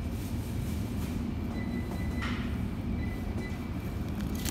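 Steady low rumble of shop background noise behind a butcher's counter, with a faint thin tone coming and going and a brief rustle a little past two seconds in, like a plastic bag being handled.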